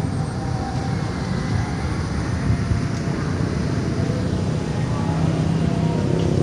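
Steady low engine rumble with a faint hum that grows a little louder about five seconds in.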